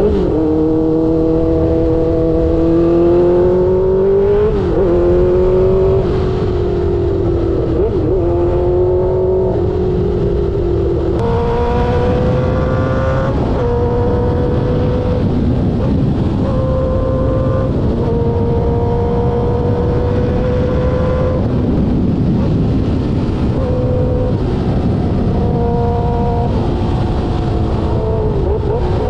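Suzuki GSX-R600 K5 inline-four engine through an SC Project exhaust, accelerating hard with quickshifted gear changes: the pitch climbs and breaks at each shift in the first dozen seconds or so. It then holds a fairly steady pitch at speed, over a rush of wind.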